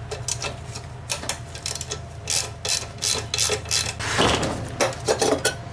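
Irregular metallic clicks and taps of a socket tool and loosened bolts on a lawn mower engine's steel muffler, then a longer scraping rattle about four seconds in as the muffler is pulled off the engine.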